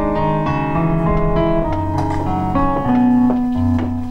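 Piano playing an instrumental passage of a cabaret song, a melody over chords with low bass notes beneath.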